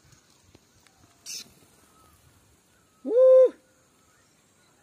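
A single loud hooting call, about half a second long and held at one steady pitch, a little past halfway through. A brief rustling hiss comes about a second in.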